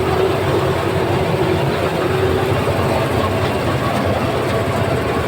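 Combine harvester running steadily: a loud, even machine drone with a constant hum.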